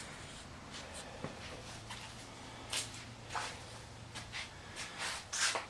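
Scattered short scuffs and rustles, about a dozen, uneven in spacing and loudest near the end, with a faint low hum through the middle.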